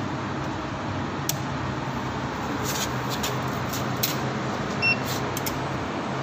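Several sharp clicks of circuit breakers and a key power switch being turned on at a packing machine's control cabinet, over a steady low hum. A short electronic beep comes about five seconds in.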